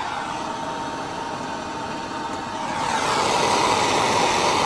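Handheld gas blowtorch burning with a steady hiss, its flame played against the side of a kettle to speed the boil. The kettle is already boiling. The hiss grows louder about three seconds in.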